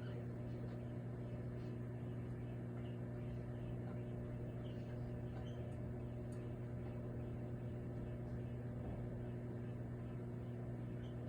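Microwave oven running with a bottle of soda inside: a steady hum with faint scattered ticks.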